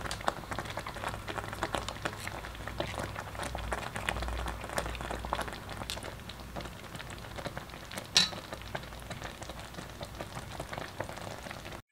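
Pot of thick rice congee boiling, its bubbles popping in a dense, irregular crackle over a low rumble. One louder, sharper sound stands out about eight seconds in.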